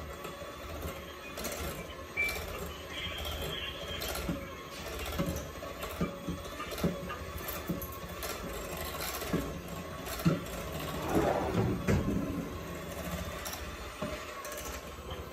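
Electric hand mixer running as it beats a cream cheese filling in a glass bowl, with scattered knocks of the beaters against the bowl.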